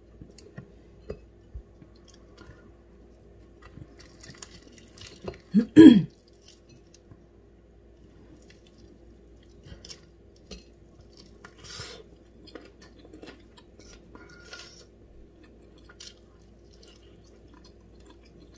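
Hands pulling apart roast chicken over a ceramic plate: scattered light clicks and clinks against the plate, with soft tearing sounds here and there. A short vocal sound about six seconds in is the loudest moment, over a faint steady hum.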